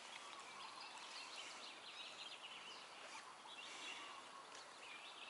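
Faint birdsong: a busy run of short, irregular bird chirps over a soft outdoor hiss.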